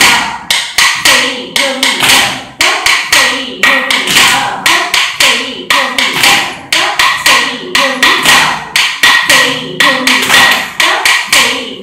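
Sharp wooden taps, about two to three a second in a steady rhythm, beating time for Bharatanatyam nattadavu steps. A voice chants the rhythm syllables between them.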